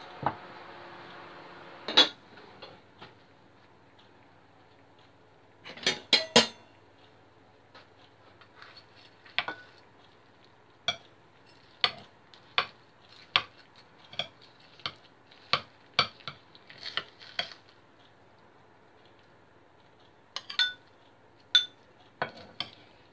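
Metal serving spoon clinking and scraping against a ceramic baking dish and bowl as a pasta bake is dished up, in a run of sharp clinks. A heavier knock comes about two seconds in as the hot dish is set down on a wooden chopping board.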